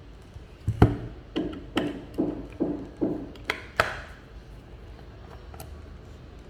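A run of about eight sharp taps and clicks, roughly two or three a second, then a few faint clicks: a screwdriver and the parts of a Helium miner's casing being worked and handled during disassembly.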